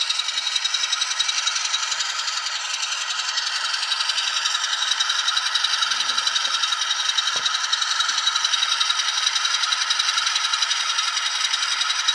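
ESU LokSound 5 Micro decoder playing its ALCO 6-539T diesel engine sound through a tiny 8x12 mm sugar cube speaker in an N scale RS-1 model: an even, rhythmic chugging with no bass. A couple of faint knocks come about halfway through.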